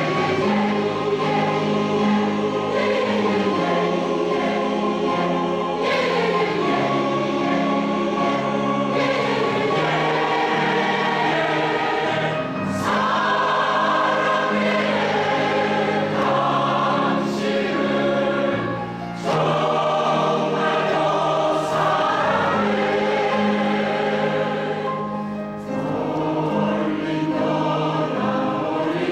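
A women's choir singing a Korean song with piano accompaniment, in sustained phrases with brief breaks between them.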